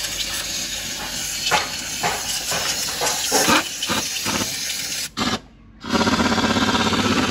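Compressed air from a handheld air blow gun hissing in repeated short blasts around a Honda Civic's engine bay. About six seconds in, after a brief pause, a loud, fast, even mechanical rattle starts.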